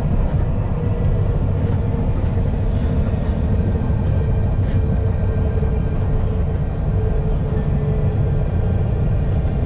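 Alstom Citadis low-floor tram running at speed between stops: a steady low rumble of wheels on rail with a faint, steady whine over it.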